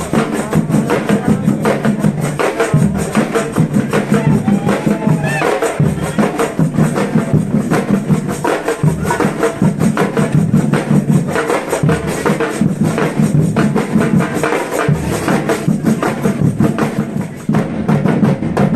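Live band music with busy, rapid percussion over a low bass part that comes in and out every second or two.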